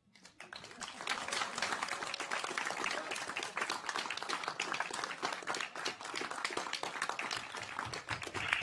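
A room full of people clapping, swelling over the first second and then holding steady.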